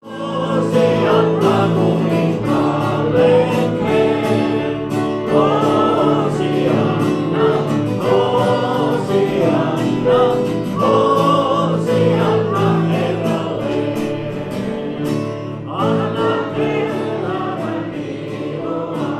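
Music: a choir singing with instrumental accompaniment, fading in at the start.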